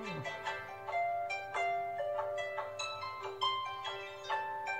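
Background music of plucked-string notes in a light, steady run over one held note.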